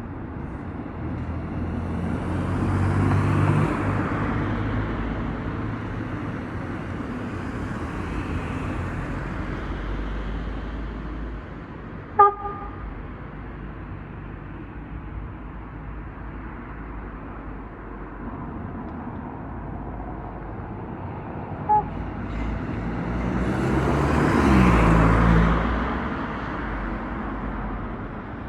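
Road traffic passing: two vehicles go by, the second with its engine pitch dropping as it passes. Two very short horn toots sound, the first and louder about halfway through, the second a few seconds before the second vehicle passes.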